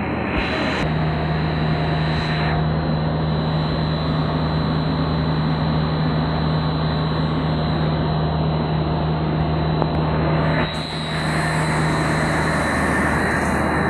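Machinery of a dog food extrusion production line running: a loud, steady mechanical drone, with a steady hum that comes in about a second in and stops shortly before the end.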